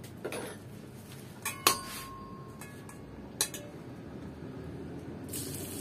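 Metal spoon clinking against a bowl of chopped garlic a few times, the loudest strike ringing briefly about two seconds in. Near the end, hot oil in the electric wok starts to sizzle as the garlic goes in.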